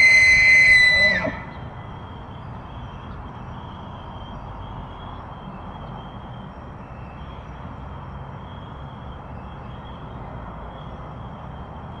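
Bull elk bugling during the rut: a high, whistled note held for about a second, then sliding down and cutting off. After that there is only a faint, steady background hiss.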